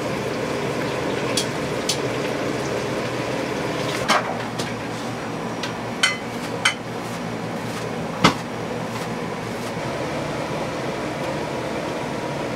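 Steady hum of a busy restaurant kitchen, with a handful of sharp knocks and clinks of utensils and dishes scattered through it, the loudest a little past the middle.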